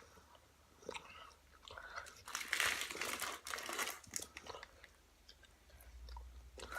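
Close-up chewing and crunching of sour candy in the mouth, with a few clicks at first and the busiest crunching from about two to four and a half seconds in.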